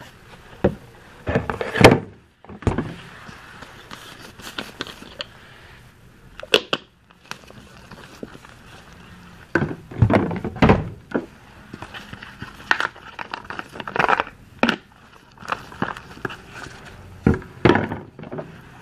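Plastic barber product bottles being picked up, handled and set down on a wooden counter: scattered knocks and clatter, the loudest about two seconds in.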